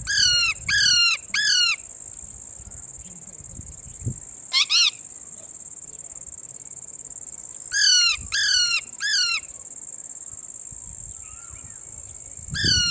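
A parrot calling: short, falling calls, mostly in quick sets of three, repeated every few seconds. Under it runs a steady high-pitched insect drone.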